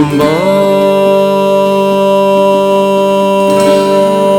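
A Kazakh folk-style song: one long held note that bends up into pitch at the start and then stays level, over the backing music.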